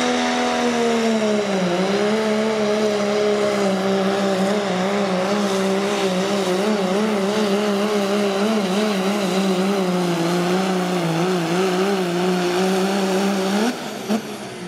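Diesel four-wheel-drive pickup's engine at full throttle under load, pulling a weight-transfer sled. The pitch sags about a second and a half in as the sled bogs it down, then holds with a wavering pitch. Near the end it gives a quick rev and drops away as the pull ends.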